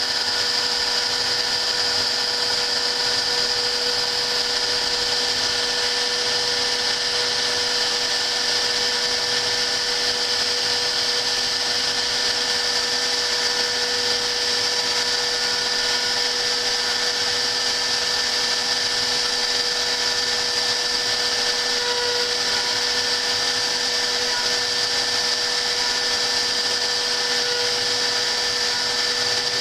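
Hobby CNC router's spindle motor running steadily while the machine mills a 3D logo, a constant high whine over a hiss, with no change in speed.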